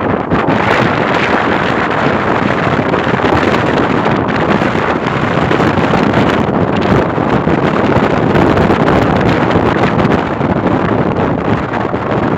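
Strong wind buffeting the microphone, a loud, steady rushing that drowns out the sound of the sea's surf.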